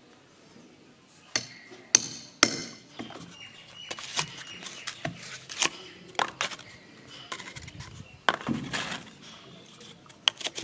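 A small hammer striking a metal rammer rod, packing fill into cardboard firework tubes on a wooden block. It makes sharp, uneven knocks, the loudest three about a second and a half to two and a half seconds in, then a quicker run of lighter taps and knocks.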